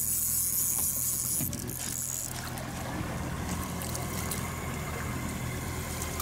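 Boat's engine running steadily at trolling speed, a low hum, with water washing along the hull. A high hiss sounds over it for the first two seconds or so, then stops.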